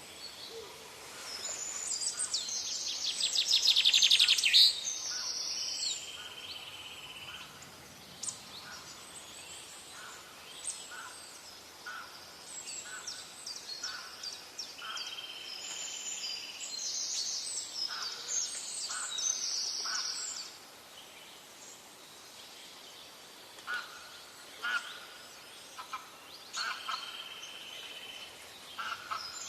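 Several birds chirping and calling in a tree, with a loud rapid trill about four seconds in and many short chirps throughout. A steady held note sounds three times, each about a second and a half long.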